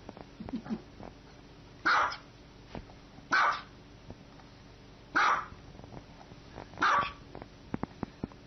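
Small dog barking: four sharp single barks, about one every second and a half.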